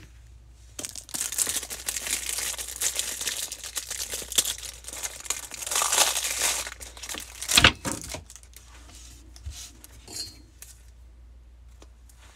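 Foil wrapper of a Bowman baseball card pack crinkling and rustling as it is handled, for about six seconds. Then a single sharp knock, followed by faint clicks of cards being handled.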